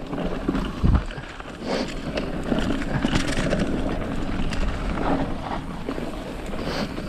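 Mountain bike descending a dirt trail at speed: tyres rolling and clattering over loose stones, with wind rushing on the microphone. A thump about a second in.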